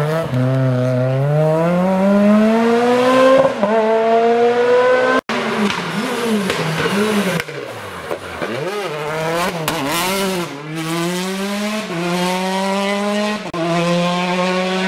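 Rally cars' engines at a hairpin. First a Renault Clio rally car accelerates away, its engine note rising through the gears with an upshift about three and a half seconds in. After a cut about five seconds in, a Peugeot 208 rally car brakes and downshifts with throttle blips, then accelerates away, the note climbing through several upshifts until it stops abruptly.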